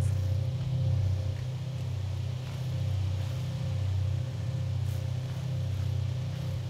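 A loud, steady low drone with a slow gentle pulsing and a faint higher steady tone above it.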